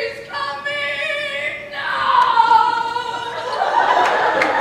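Unaccompanied improvised opera-style singing: long held notes that waver and slide, with a new phrase starting just under two seconds in.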